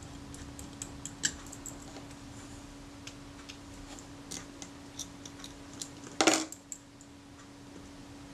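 Small metallic clicks and ticks of tiny screws and metal parts being handled and fitted into a Rolleiflex Automat camera body, with one louder knock about six seconds in.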